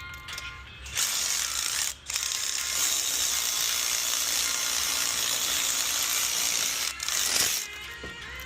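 Ratchet running the wheel hub assembly's mounting bolts in. It runs as one long steady stretch with a short break about two seconds in, then stops about a second before the end.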